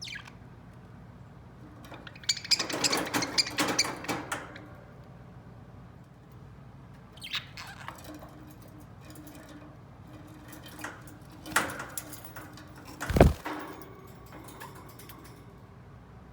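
A pet budgie moving about its cage: bursts of rapid clicking and scratching, the longest about two seconds in, and one sharp knock near the end.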